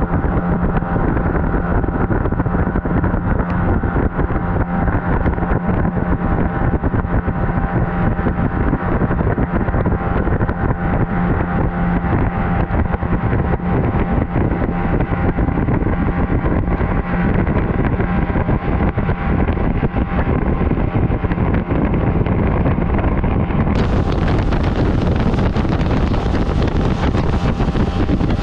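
Small boat's motor running steadily at cruising speed, with a steady low hum, wind buffeting the microphone and water rushing past the hull.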